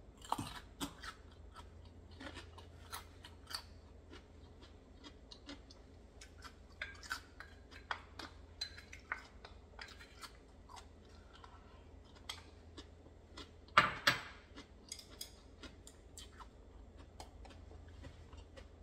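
Close-up eating of raw oysters: scattered small mouth clicks and chewing, with wooden chopsticks clicking against the shells and a bowl. Two louder clacks come a little past the middle.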